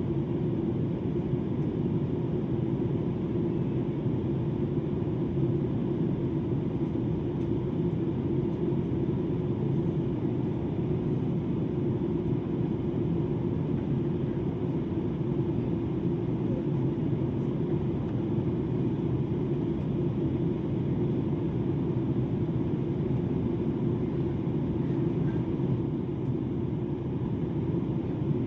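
Steady low drone of engines and airflow heard inside a passenger jet's cabin, even in level throughout.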